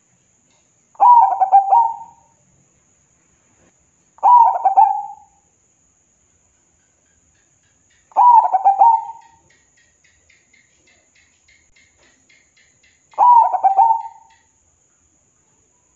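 Zebra dove (perkutut) cooing: four separate phrases of rapid, run-together coos, each about a second long and a few seconds apart.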